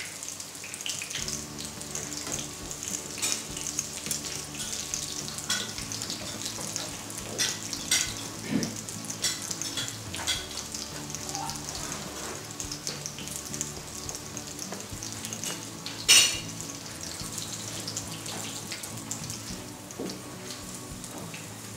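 Oil sizzling and crackling in a frying pan on a gas burner, with a short, loud clatter about 16 seconds in.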